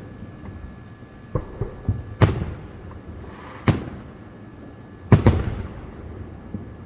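Aerial fireworks bursting: a few small cracks, then three loud bangs about a second and a half apart, the last one doubled, each trailing off in an echoing rumble.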